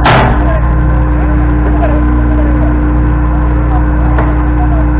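Truck-mounted borewell drilling rig running loud and steady, with a constant hum and a steady tone. A sharp clang with a short ring comes at the very start.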